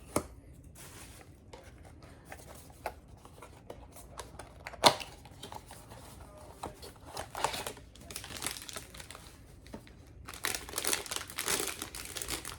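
Packaging of a small collectible figure being opened by hand: scattered rustles and sharp clicks, the loudest about five seconds in, then steady crinkling from about ten seconds in.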